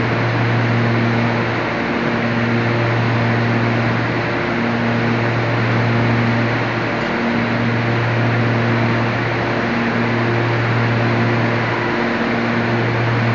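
Stevia dryer machinery running: a loud, steady rushing noise over a strong low hum, with a higher tone that comes and goes about once a second.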